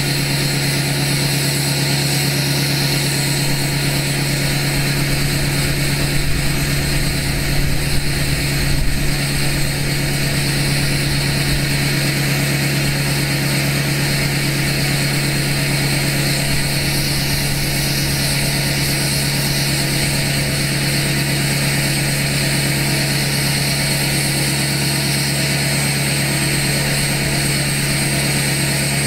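2012 LML Duramax 6.6-litre V8 turbodiesel idling steadily, still cold from a cold start, with a deep drone through its 5-inch straight pipe and 8-inch axle-dump tip.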